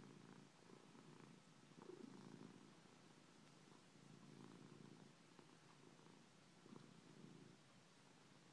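Red tabby cat purring softly and steadily, the purr swelling and pausing with each breath about once a second.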